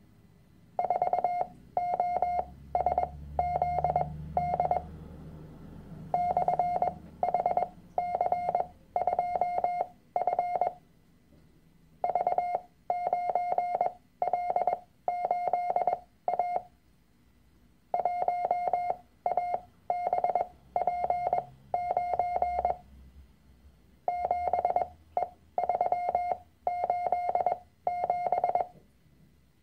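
Morse code practice tone, a steady beep of about 700 Hz keyed in dots and dashes, sending random letters, figures and slashes one character after another with short gaps between them. The characters are sent at full speed with the spacing between them shortened, a stage in Farnsworth-style copy training.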